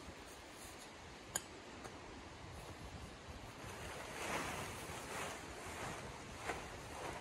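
Black tent fabric rustling and swishing as it is gathered up and lifted, louder in swells from about halfway through, over a steady rush of running river water. A single sharp click about a second in.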